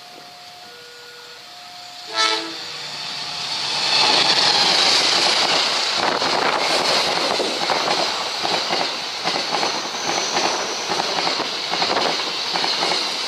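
A level-crossing warning signal rings in alternating tones, then a short blast of the diesel locomotive's horn sounds about two seconds in. An Indonesian passenger train then passes close by at speed: loud wheel-and-rail noise with rapid clacking over the rail joints.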